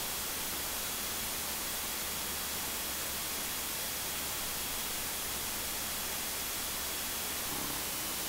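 Steady loud hiss of a light aircraft's cabin noise fed through the intercom in flight, with a faint steady high whine under it. One intercom input is set too high, which the pilot says makes it sound like a jet engine.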